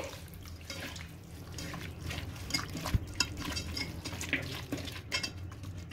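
Raw mutton pieces coated in spice paste being squeezed and turned by hand in a steel pot: quiet, irregular wet squelches and slaps, with a single knock about three seconds in.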